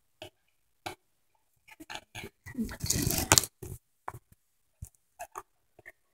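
Small clicks and taps of plastic Lego pieces being handled on a table while a minifigure is fitted with its swords and stood up, with a louder stretch of rustling handling about halfway through.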